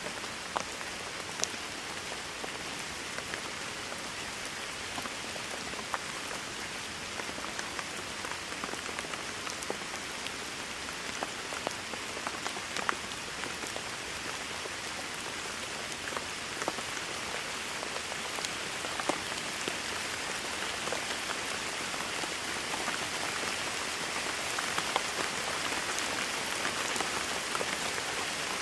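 Steady rain falling, with a dense hiss and scattered sharp drip taps; it grows slightly heavier over the second half.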